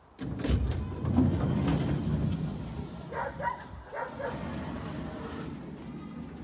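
Corrugated sheet-metal up-and-over garage door being swung open, a rattling rumble that starts suddenly and tails off as the door rises, with a few short high squeaks partway through.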